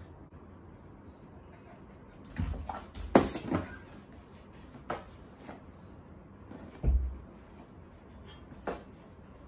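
Husky puppy pulling a cardboard box and plush toy down from a door handle and tussling with it on a tile floor. There is a cluster of knocks and thumps about two and a half to three and a half seconds in, the loudest a sharp knock, then a few scattered bumps and scuffs of the box against the floor.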